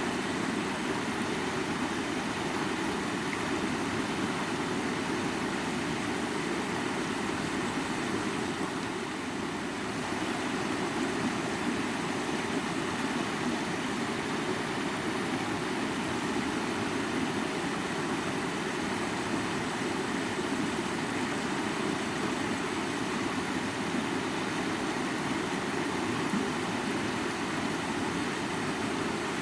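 Mountain river flowing: a steady rush of water, briefly a little softer about nine seconds in.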